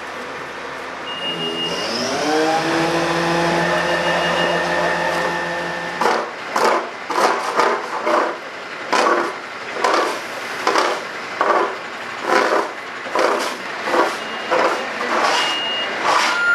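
A fire engine's engine runs and speeds up about two seconds in, then holds a steady, higher speed. From about six seconds it gives way to a regular run of short scraping strokes, about three every two seconds, as the snow and ice are dug at.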